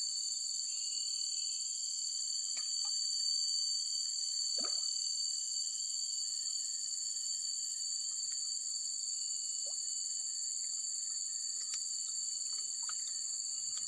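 Steady chorus of insects shrilling in two high-pitched bands, with a few faint short clicks and one brief falling chirp about halfway through.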